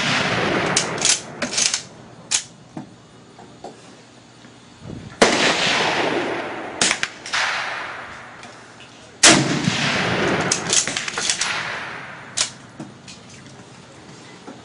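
Mosin-Nagant bolt-action rifle (7.62×54R) fired twice, about four seconds apart, about five and nine seconds in. Each shot has a long echoing tail. Sharper short cracks and clicks come in between, and the tail of an earlier shot dies away at the start.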